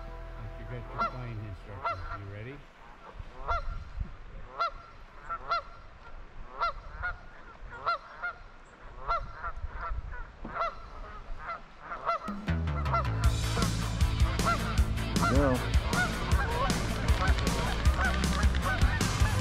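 A flock of Canada geese honking over and over in short, repeated calls. About twelve seconds in, music with a steady bass and a regular drumbeat comes in loud under the continuing honks.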